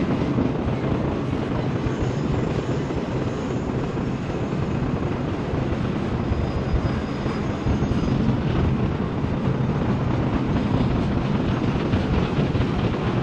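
Norfolk Southern freight train rolling past, a loud, steady noise of wheels and cars with no break.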